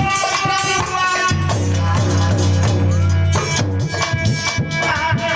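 Harmonium playing with dholak drumming, the instrumental accompaniment of an Aalha folk song. A deep harmonium note is held for a couple of seconds midway.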